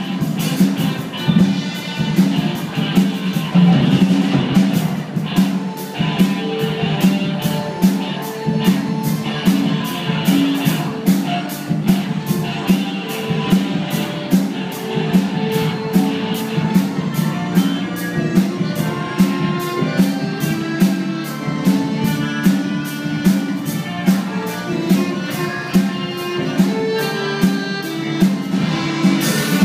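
A live band plays jazz-rock on drum kit, electric guitars, bass and saxophone, with a steady beat on the drums and cymbals under held melody notes.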